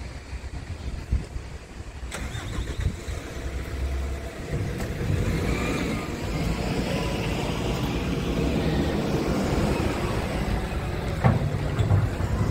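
A motor vehicle's engine running, which comes in and holds steady about four and a half seconds in, with wind gusting on the microphone throughout and a single sharp click near the end.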